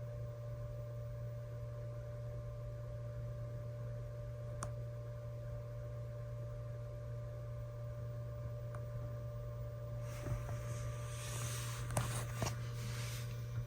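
Steady electrical hum with a thin high whine above it, coming from a Gathers VXU-245VZi 9-inch car navigation unit. The owner suspects this fairly loud noise is abnormal. Near the end, a few seconds of rustling and a couple of sharp clicks.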